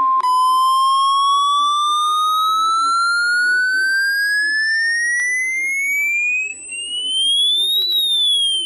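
Steady weather-radio alert tone cutting off, followed at once by an electronic siren-like alert tone that rises slowly in pitch for almost eight seconds, then turns and starts to fall near the end.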